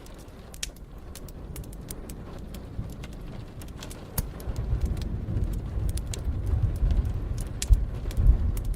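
Wood fire crackling and popping in a fireplace, with sharp irregular pops throughout. About halfway through a deep roll of thunder builds up under it, loudest near the end.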